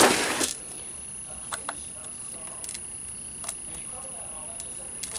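A short burst of rustling handling noise, then a few light, scattered clicks from small padlock parts and tools being handled as the lock is re-pinned, over a faint steady high whine.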